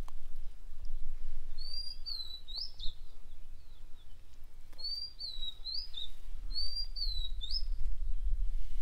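A bird calling three times, each a short whistled phrase that rises and falls, over a steady low rumble that swells near the end.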